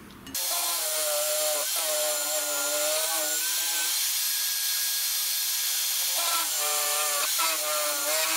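Drill press running steadily while a 4 mm bit drills pilot holes through two clamped aluminium plates. The cutting whine comes and goes in stretches, with a pause of a couple of seconds in the middle, as the bit is peck-drilled in and out of the metal.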